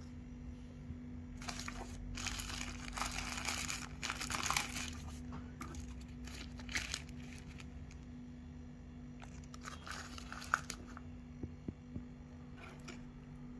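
Packaging crinkling and rustling as it is unwrapped by hand, in several bouts, the longest and loudest from about one and a half to five seconds in. A steady low hum lies underneath.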